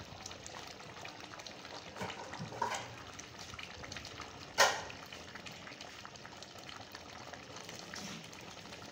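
Thick mutton and potato curry bubbling and spitting in ghee at the frying (bhuna) stage, once the ghee has separated: a steady crackly bubbling with small pops. There are a couple of louder crackles near two seconds in and one sudden loud pop about halfway through.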